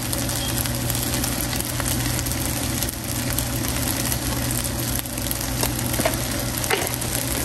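Fried rice frying in a pan, a soft sizzle over a steady low hum, with a few faint light clicks.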